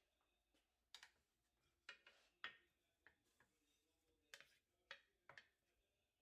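Faint, irregular sharp taps and clicks of kitchen utensils, about ten in six seconds, some in quick pairs.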